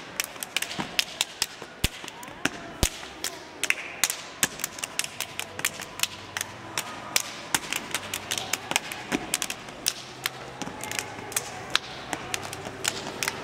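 A step team's percussive routine: shoes stamping on a hard stone floor together with hand claps and slaps on the body, a fast run of sharp hits, several a second.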